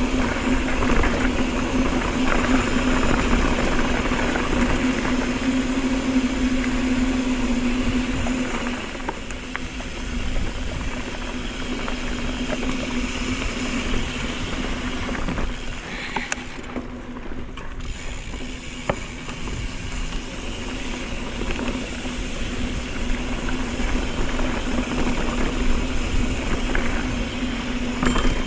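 Mountain bike coasting fast down a dirt fire road: the rear hub's freewheel buzzes steadily, loudest for the first eight seconds or so, over tyres rumbling on dirt and gravel and wind on the microphone.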